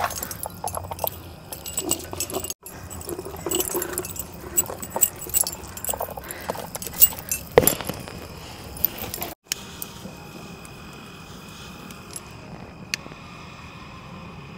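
Metal clinking and jangling from heavy bracelets, rings and chains knocking against a large aluminium cooking pot, along with wet handling noises as a whole marinated goat is lifted and turned in it. Later it is quieter, with a faint steady high tone and an occasional click as sticks of firewood are set on stones.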